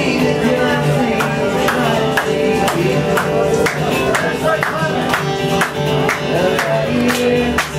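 Live folk-rock band playing a song: acoustic guitar strummed on a steady beat of about two strokes a second, with singing over it.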